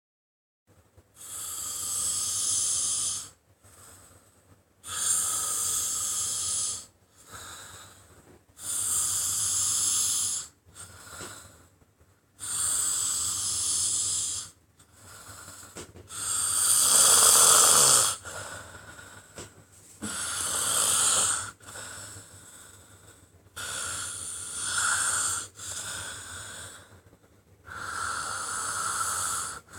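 Someone snoring in slow, regular breaths: about eight long, hissing snores, one every four seconds or so, the loudest about halfway through.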